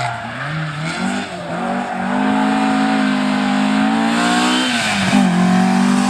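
Rally car engine under hard acceleration. The revs dip and rise over the first couple of seconds, then hold high and steady, drop sharply for a moment about five seconds in, and climb again.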